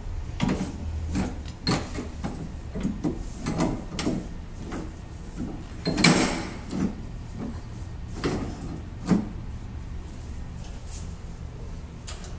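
Irregular metallic clicks and clunks from parts of an electric pipe threading machine being handled: the pipe cutter is lowered and set on a 3-inch steel pipe and the carriage is moved by hand. The two loudest knocks come about halfway through and near the end.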